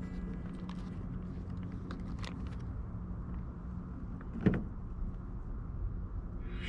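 Small handling clicks of pizza toppings being laid out by hand on a table, over a steady low hum, with one sharp knock on the table about two-thirds of the way through.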